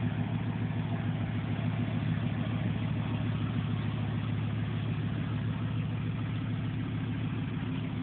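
Dodge Ramcharger's 318 V8 idling steadily, with no revving. The owner calls the engine very tired and says it smokes.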